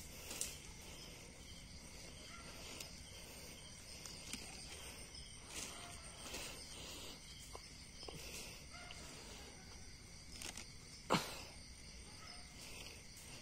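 Faint steady insect chirring, with soft scattered rustles and clicks of hands working through dry leaf litter while mushrooms are picked. A single sharp click about eleven seconds in is the loudest sound.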